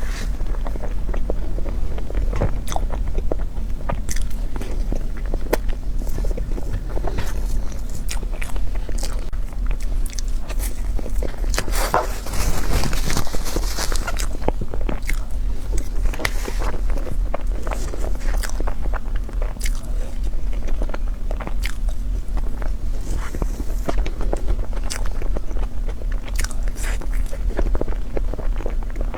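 Close-miked eating: biting and chewing with many small wet clicks and smacks, and a louder crunchy, rustling stretch about twelve seconds in.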